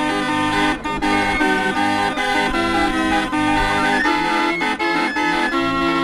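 Hand-cranked pipe barrel organ playing a tune: held chords over a bass line that moves in a steady beat.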